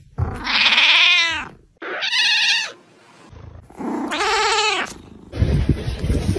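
Black-and-white cat meowing three times: long, drawn-out meows that rise and fall in pitch, the second one higher. Near the end come rustling and knocking.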